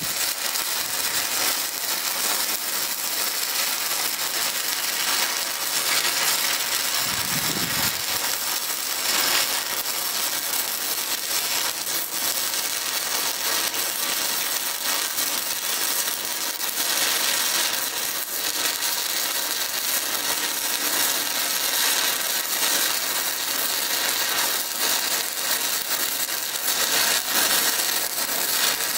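Stick welding arc crackling and sizzling steadily as an electrode burns along a bead, starting abruptly as the arc is struck.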